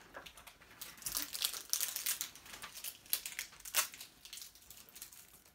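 Plastic packaging crinkling and crackling in quick, irregular bursts as hands work at a small packet to try to open it.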